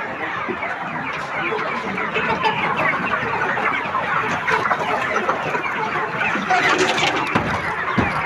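A large flock of chickens clucking, a dense, continuous chatter of many overlapping calls.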